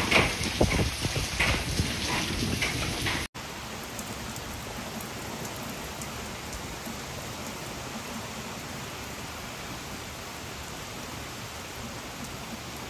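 Heavy rain falling, loud and uneven with irregular thumps and gusts for the first three seconds or so. It then cuts off suddenly into a steady hiss of heavy rain pouring onto a shingle roof.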